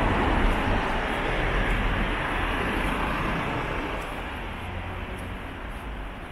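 Street traffic: a passing vehicle, loudest at the start and fading away over a few seconds, over a steady low traffic rumble.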